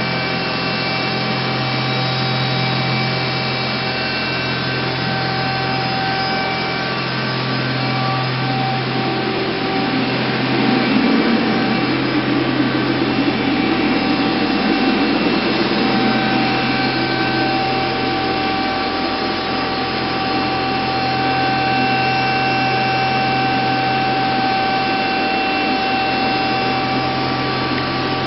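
Steady hum and whine of running machinery: a powered-up CNC vertical machining center's motors and cooling fans, with a low drone and several held whining tones. A louder rushing noise swells in from about nine seconds in and fades again by about seventeen seconds.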